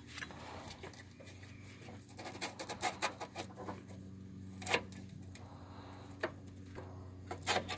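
Scattered small clicks and scrapes as the metal-canister inline fuel filter is worked out of its plastic mounting clamp on the fuel line, over a steady low hum.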